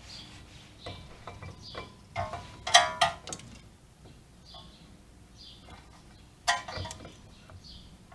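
Metal parts and tools clinking and clanking with a short ring. There are a few light clinks, then a loud clank about three seconds in and another just past six and a half seconds.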